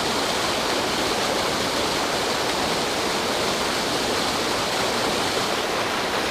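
Creek water rushing steadily over a spillway waterfall, an even, unbroken noise.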